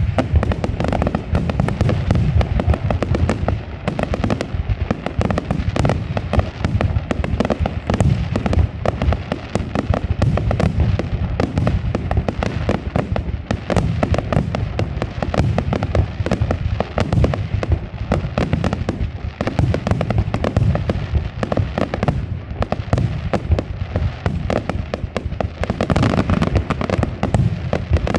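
Aerial fireworks going off in a dense, continuous barrage: rapid overlapping bangs and crackles without a pause.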